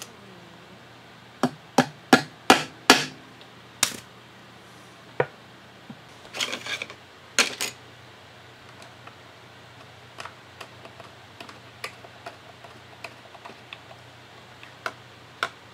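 A run of sharp knocks on a wooden box, loudest in the first few seconds. Later come lighter, scattered clicks as a small screwdriver turns a small screw into the wood.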